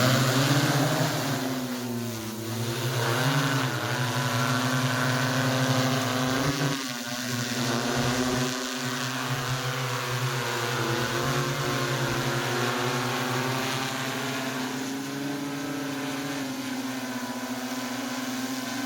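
Quadcopter drone's propellers and motors whirring in flight, a steady buzzing hum whose pitch wavers up and down as the throttle changes.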